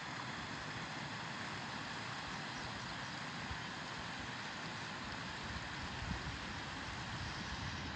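Steady rushing of a small mountain stream, with wind buffeting the microphone in low, uneven rumbles.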